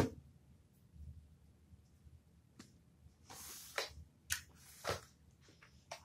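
Slime being worked and shaped by hand: faint, scattered squishes and small clicks, with a sharper click at the start.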